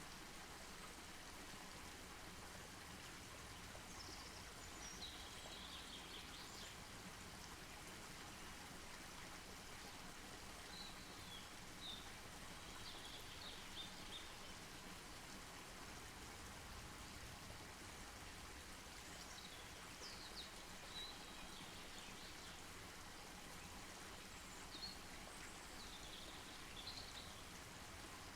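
Faint outdoor ambience: a steady hiss with small birds chirping briefly now and then, high-pitched, in four short spells.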